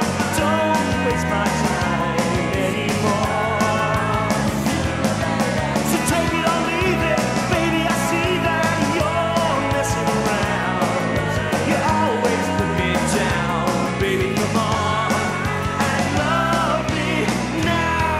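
Early-1990s Australian indie power-pop band recording: full rock band music with a steady beat.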